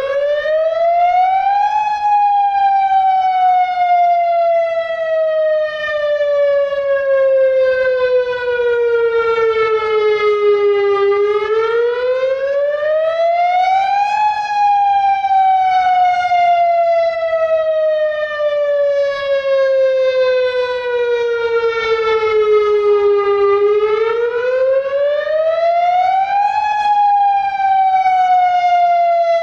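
Federal Signal DSA outdoor warning siren sounding the Attack signal. It is a wail whose pitch climbs quickly over about two seconds and then sinks slowly over about ten, in a rich tone full of overtones. The pitch rises near the start, again about a third of the way in, and again near the end.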